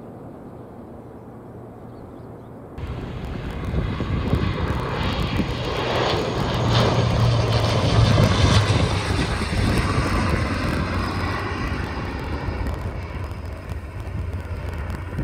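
Dash 8-400 turboprop passing low on landing approach: the drone of its engines and propellers with a strong low steady hum, building to its loudest about halfway and then easing off. For the first few seconds, before that, only a faint distant rumble from a departing Boeing 777.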